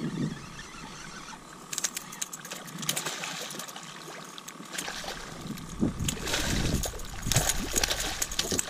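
Hooked fish thrashing and splashing at the surface beside a kayak. The splashing gets louder and heavier in the last few seconds as the fish is brought to the net.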